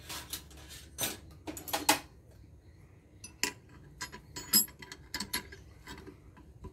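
Steel tool pieces clinking and clicking against the metal head of a water pump as a bent flat bar is fitted over the shaft coupling to hold the shaft still: a string of irregular sharp metallic clinks, the loudest about two seconds in and again midway.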